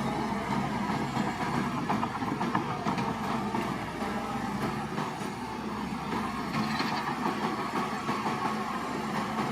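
Shantui crawler bulldozer working, its diesel engine running steadily under a continuous metallic clatter.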